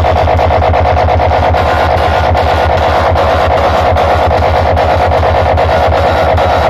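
Loud music with guitar played through a large PA sound system, with a fast, steady bass beat.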